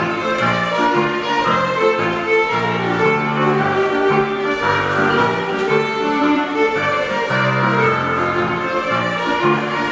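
Scottish country dance music for a jig: a fiddle-led melody over a steady, bouncing bass line, played continuously at an even level.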